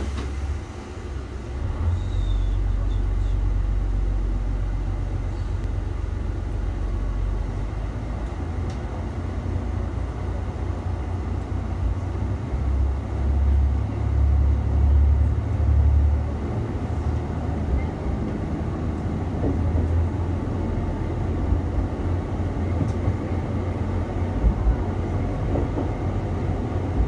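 JR Shikoku 1000 series diesel railcar pulling away and gathering speed, heard from behind the driver's cab: a steady low diesel engine rumble that steps up in the first couple of seconds, with wheel-on-rail running noise.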